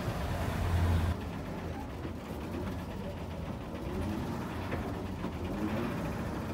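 Small bus's diesel engine running, heard from inside the cabin as a steady low drone; it swells briefly about a second in, then settles quieter.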